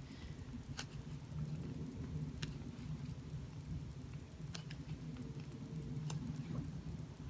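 Pages of a paperback coloring book being turned by hand: about four short, crisp papery flicks spaced a second or two apart, over a low steady background hum.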